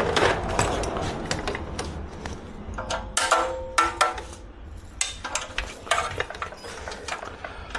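Hand tools working on motorcycle exhaust fittings: irregular metallic clicks and clinks, with a short ringing metal clink about three seconds in.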